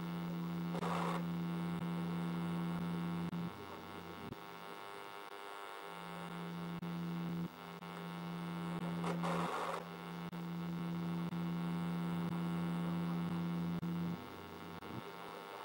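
A steady low electrical-sounding hum with a stack of overtones, cutting out and coming back several times, with two short hissing bursts, one about a second in and one about nine seconds in.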